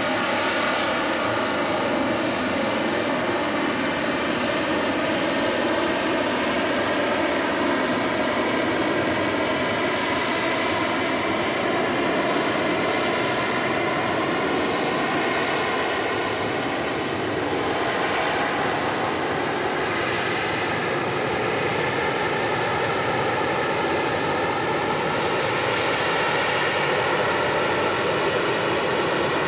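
AV-8B Harrier II's Pegasus vectored-thrust turbofan running steadily in a low hover. A loud, unbroken jet noise carries a whine of several tones that waver slightly in pitch.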